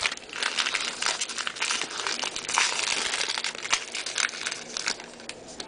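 Crinkling of a plastic-foil trading card pack wrapper, with a steady run of small rustles and clicks as cards are handled.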